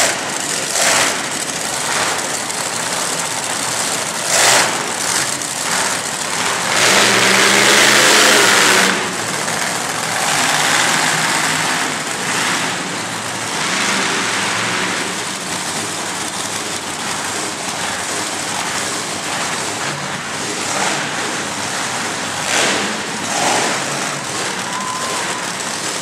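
Monster truck engines running loud and revving as the trucks drive, with a loud sustained rev about seven seconds in and a few sharp bangs.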